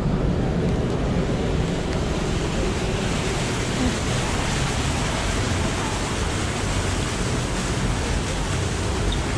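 Steady rushing noise of a busy city street heard while walking, an even hiss and rumble with no single sound standing out.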